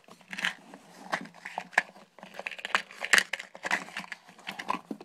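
Handling noise close to the recording phone's covered microphone: irregular rustling and crinkling with many small clicks and knocks.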